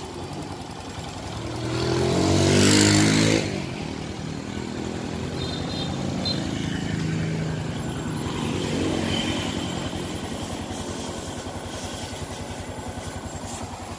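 Honda Future Neo FI's single-cylinder fuel-injected four-stroke engine idling steadily and quietly. A louder swell rises about one and a half seconds in and cuts off at about three and a half seconds.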